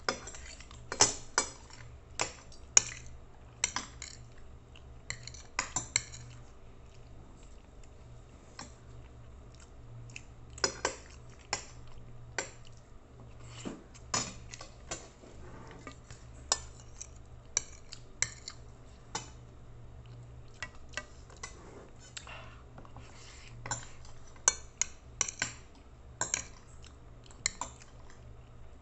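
Metal spoon and fork clinking and scraping against a plate while eating, in scattered clusters of sharp clicks with a quieter stretch from about six to ten seconds in, over a low steady hum.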